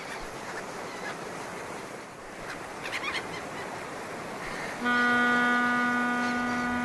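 A ship's horn sounds one long, steady blast starting near the end, over an even wash of sea ambience with a couple of faint high calls before it.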